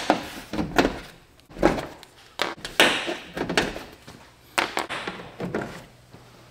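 Plastic push-pin body clips being pried out of a truck's plastic top engine shroud with a small flat tool. A run of sharp plastic clicks and snaps comes about one or two a second.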